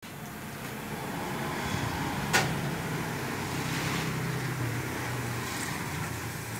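A motor running steadily with a low hum, with one sharp click about two and a half seconds in.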